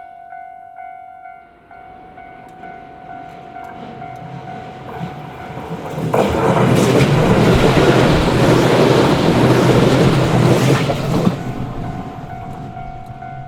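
Electric train passing over a level crossing, building from about two seconds in, loudest from about six to eleven seconds, then fading, with clickety-clack from the wheels. The crossing's warning bell rings steadily before and after and is drowned out while the train goes by.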